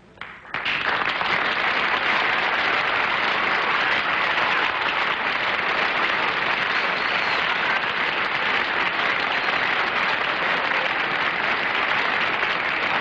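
Studio audience applauding steadily, starting about half a second in, greeting a guest's entrance.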